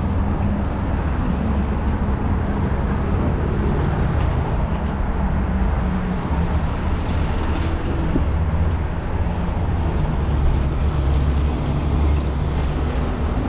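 Steady street traffic noise heard from a moving bicycle, with a heavy low rumble throughout.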